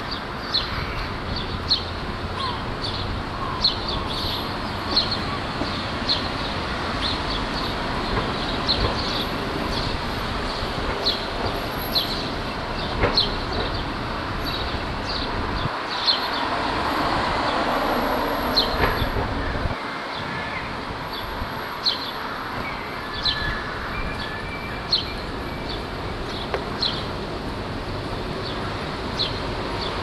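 Gull chicks peeping: short, high-pitched peeps repeated roughly once a second, over steady street traffic noise that swells and then drops off about two-thirds of the way through.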